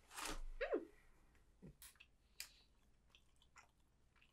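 Faint chewing of dark chocolate with scattered small mouth clicks. Right at the start comes a short breathy rush and a falling 'mm' from a voice.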